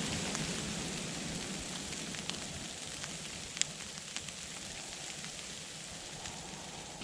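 Steady hiss of wind-driven snow and ice in a winter storm, easing slightly, with a few sharp ticks about two to four seconds in.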